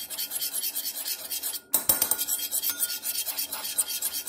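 Metal spoon stirring quickly in a small bowl, scraping against the bowl in a fast, even rhythm as sugar-free maple syrup and yellow mustard are mixed. The scraping pauses briefly a little under two seconds in, a sharp knock follows, and then the scraping carries on.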